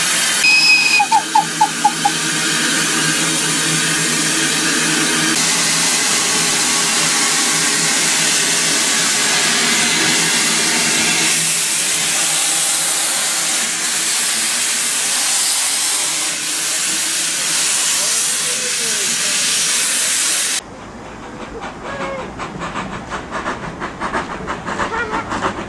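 A steam locomotive gives off a loud, steady hiss of escaping steam, with a short whistle near the start. About twenty seconds in, the sound cuts to a quieter, quick, rhythmic chuffing from a tank engine's exhaust as the engine works along the line.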